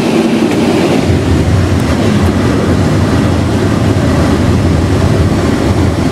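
Steady, loud rush of airflow and low rumble in a glider's cockpit while it is towed aloft behind a propeller tow plane.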